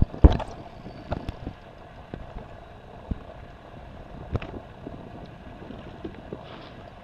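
A sharp knock from the camera being handled just after the start, then a steady, quiet background of water and wind around a small boat, with a few scattered small knocks and ticks.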